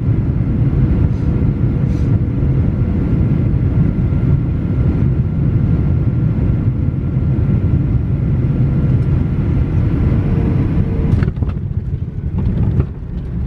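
Jet airliner cabin noise on the landing approach: a steady loud rumble of engines and rushing air with a faint steady whine above it. About eleven seconds in, a sharp knock marks the wheels touching down, and the noise changes after it.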